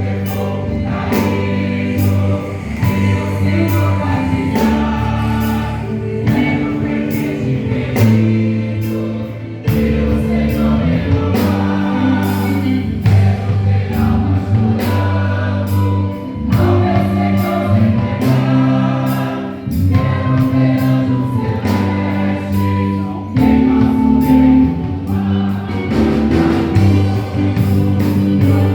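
Church choir singing a Portuguese-language gospel song over a band, with a heavy bass line and a steady drum beat.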